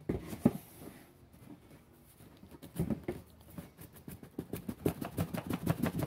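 Cardboard box being handled and its tight lid worked off: a few knocks as the box is moved, then fast, scratchy rubbing of hands and cardboard sliding on cardboard that grows louder toward the end.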